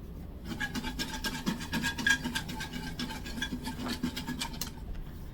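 A cocktail shaker being shaken, its contents rattling and scraping inside in a quick, busy run of clicks that stops near the end.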